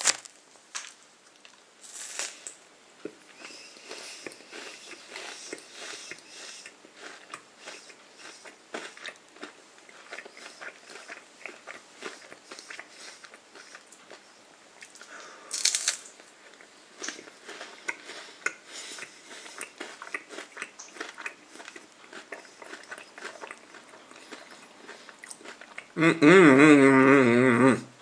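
A person chewing a mouthful of Nestlé Crunch wafer bar, a rice-and-wafer filling under chocolate, with small crisp crunches throughout and a couple of louder bites, one about two seconds in and one about halfway through. A voice sounds for a couple of seconds near the end.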